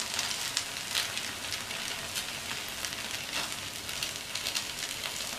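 Oil sizzling steadily around rava paniyaram frying in the wells of a paniyaram pan, with a constant patter of small crackles.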